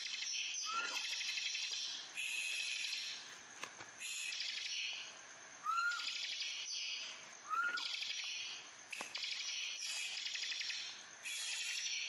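Caged bar-winged prinia (ciblek kristal) singing its fast buzzing 'ngebrem' song: rapid high trills in phrases of one to two seconds, repeated over and over with short pauses. A few short, lower down-slurred notes come in between the phrases.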